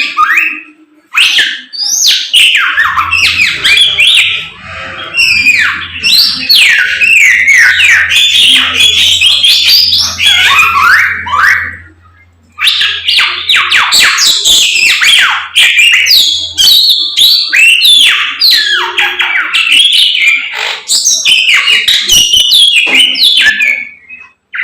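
Samyong songbird in full, continuous song: a rapid, varied stream of chirps, trills and whistled glides, breaking off briefly about halfway before carrying on. A faint low hum sits under the middle of the song.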